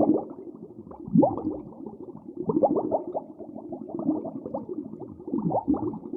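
A group of farm animals calling over one another, with many short, overlapping calls that slide down in pitch, several a second.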